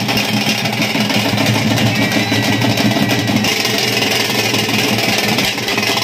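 Group of drummers beating stick-played cylindrical drums in a fast, dense, unbroken rhythm.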